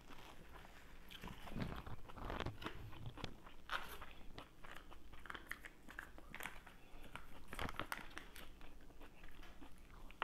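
Close-miked chewing and crunching of a mouthful of salad, a rapid irregular run of crisp crackles and wet mouth clicks.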